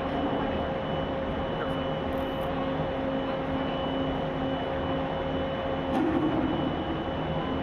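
Steady machinery hum from a large warship's side at the pier, with a constant whine and a low tone that pulses on and off about twice a second; it grows a little louder about six seconds in.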